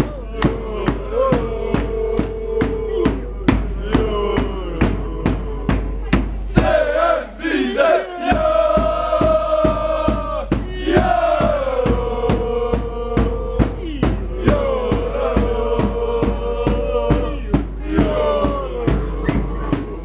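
Football supporters chanting in unison, long held notes that change pitch every few seconds, over a steady beat of about two to three strikes a second.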